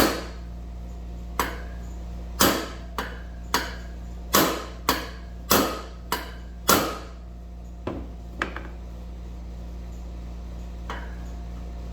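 Hammer blows on a big socket driving a new front wheel bearing into a motorcycle wheel hub: about ten sharp metal strikes in the first seven seconds, then two lighter taps and a faint last one.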